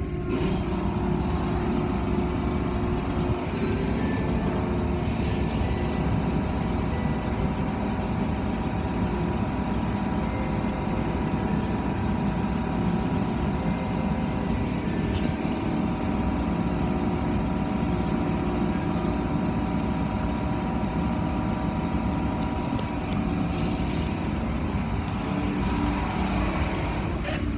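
Automatic car wash heard from inside the car's cabin: a steady rush of water spray over the car with the low rumble of the wash machinery.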